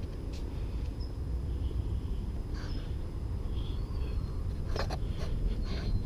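Outdoor background: a steady low rumble with a few faint high chirps, and a couple of short clicks near the end.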